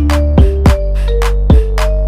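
Background music with a steady beat: drum hits over a deep held bass and a simple melody of held notes.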